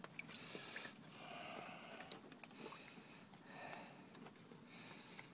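Faint, even breaths in and out close to the microphone, about one a second.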